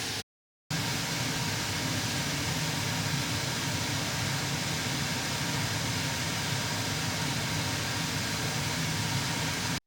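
Steady car cabin noise while driving: a low rumble under an even hiss. It cuts out completely for about half a second just after the start and again at the end, at edit cuts.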